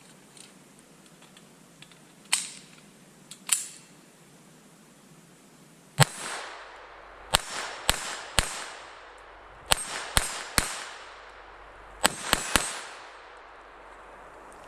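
Smith & Wesson M&P 22 Compact .22 LR pistol firing about ten sharp shots in three quick strings, each shot with a short echo, after two softer pops.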